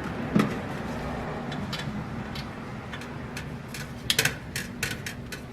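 Scattered light clicks and taps as the refrigerator's thermostat mounting plate and its parts are handled, with a quick cluster of clicks about four seconds in, over a low steady hum.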